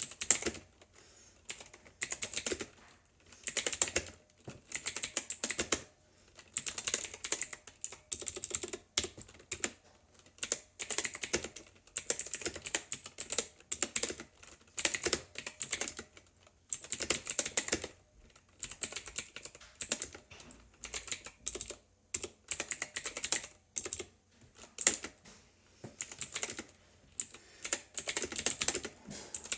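Typing on a mechanical keyboard with Outemu Blue clicky switches: fast runs of sharp, high clicks in bursts with brief pauses between them.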